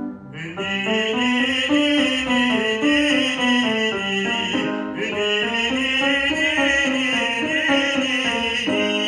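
A man's trained operatic voice singing a vocal warm-up exercise on the narrow "ee" vowel (syllables "ni-i"), with piano accompaniment. Two phrases, each climbing and then coming back down a scale, the second starting about halfway through.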